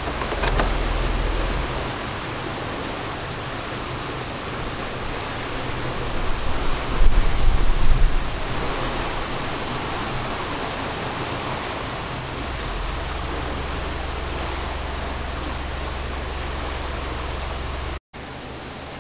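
Steady rushing of water in a canal lock, with a low steady hum beneath it and a louder, rougher stretch about six to eight seconds in.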